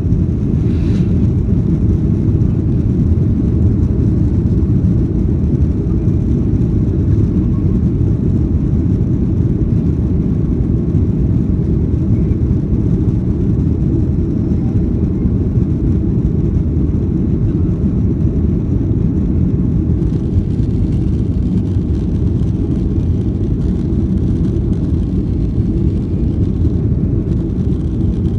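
Boeing 737-800's CFM56 jet engines and airflow heard from inside the cabin as the airliner rolls along the runway: a loud, steady low rumble that holds unchanged throughout.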